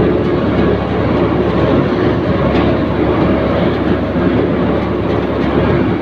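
Combine harvester running in the field, heard from the operator's seat: loud, steady engine and machinery noise as the header reel and cutter bar work through the standing crop.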